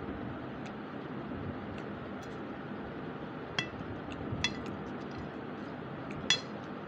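A steel spoon clinking against a plate as it scoops fried rice and potato chips: three sharp, ringing clinks about halfway through and near the end, the last the loudest, over a steady low hiss.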